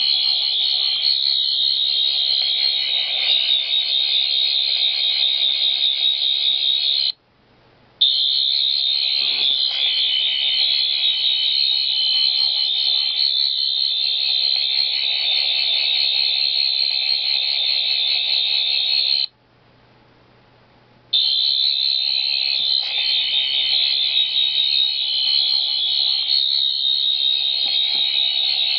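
A shrill, high-pitched electronic alarm-like tone sounding steadily with a slight warble. It cuts out for under a second about seven seconds in, and for about two seconds around two-thirds of the way through, then resumes.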